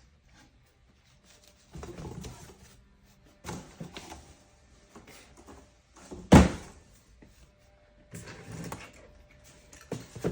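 Cardboard box and packing peanuts being rummaged and handled in bursts, with one sharp knock about six seconds in.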